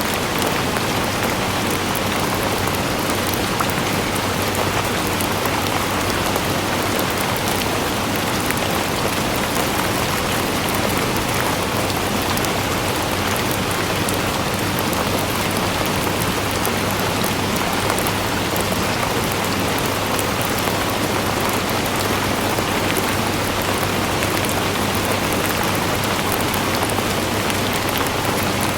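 Steady rain falling on a surface, an even hiss with fine patter of drops throughout.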